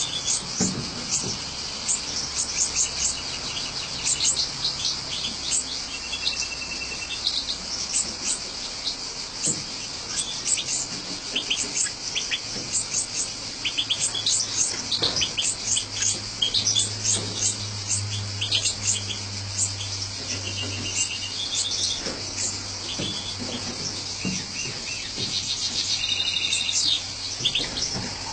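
European goldfinches chirping and twittering, a dense run of quick high-pitched notes, with fledglings begging at the nest while an adult feeds them.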